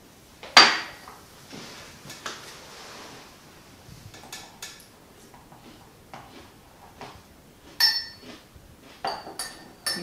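Dishes and cutlery clinking and knocking on a table: one sharp, ringing knock about half a second in, scattered light clicks after it, and a ringing clink with a quick run of clicks near the end.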